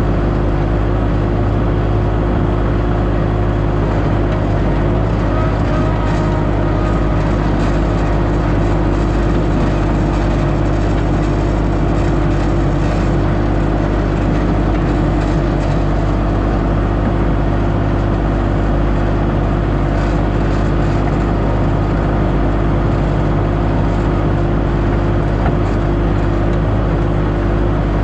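Diesel engine of a compact construction machine running steadily at a constant speed, a low even hum without revving.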